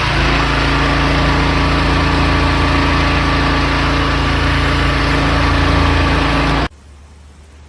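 Pressure washer running, a loud steady hum with a dense hiss over it, cutting off suddenly near the end.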